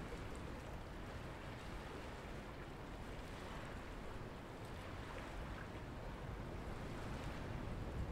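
Calm sea water washing gently at a rocky shoreline, a steady, even wash with a low rumble of wind on the microphone.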